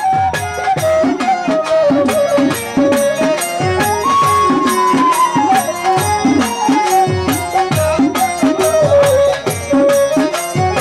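Instrumental interlude of a live Bangladeshi folk (jari) band: a woodwind melody gliding up and down over a steady beat of hand drums whose low strokes slide in pitch.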